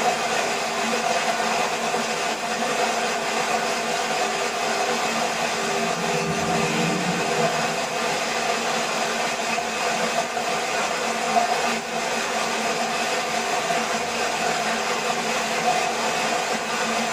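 Steady roar of a waterfall's falling water: an even, unbroken rushing.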